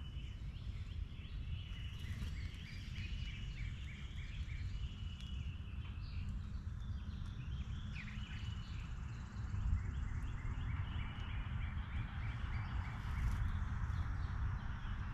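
Several songbirds singing, with rows of short repeated notes and a few held whistled notes, over a steady low rumble of outdoor background noise.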